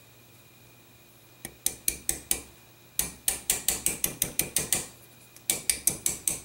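Small gunsmith's hammer tapping a pin into the rear of a revolver's trigger guard, driving out the slave pin. The taps are quick, light and metallic, about five a second, in three runs with short pauses between them.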